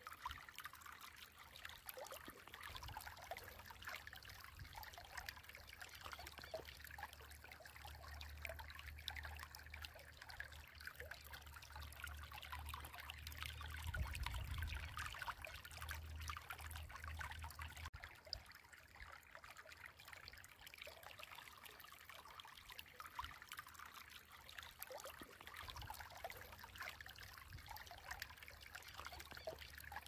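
Faint trickling water, a steady patter of small crackles, with a low rumble that comes and goes during the first half.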